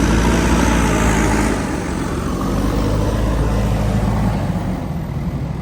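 Diesel engine of a JCB backhoe loader running at work, its sound easing down about a second and a half in and then running on.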